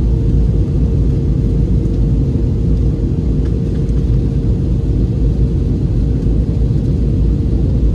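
Airliner cabin noise from a Frontier Airbus A320-family jet on its descent: a loud, steady low rumble of engines and airflow with a constant hum tone running through it.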